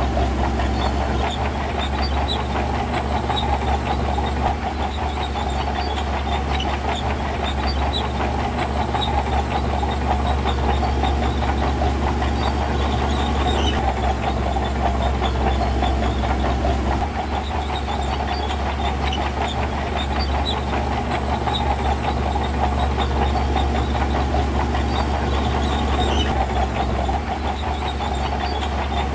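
Heavy diesel earthmoving machine working sand, its engine running steadily with a deep rumble and a continuous metallic rattle.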